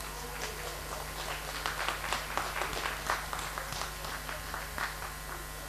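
A small group of people clapping, building to a peak a couple of seconds in and then petering out, over a steady electrical hum.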